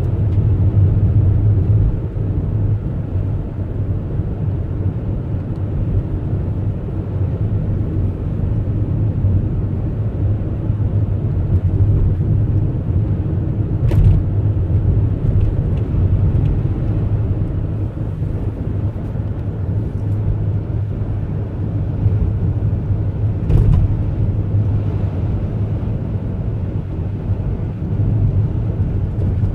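Steady rumble of a car being driven, road and engine noise with no change in pace, broken by two brief knocks about halfway and two-thirds of the way through.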